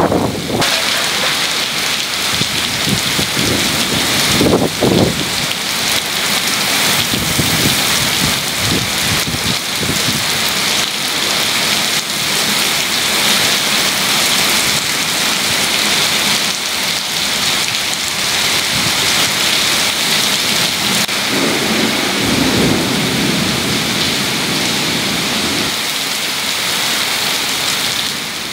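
Torrential rain pouring down on a paved street, a loud steady hiss. A short low rumble comes about five seconds in and a longer one a few seconds before the end.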